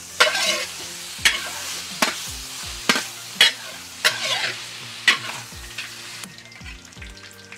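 A metal spatula scraping and knocking against a large iron wok as sliced pork is stir-fried, with oil sizzling steadily under the strokes. The strokes come about once or twice a second, and the sizzle drops away about six seconds in.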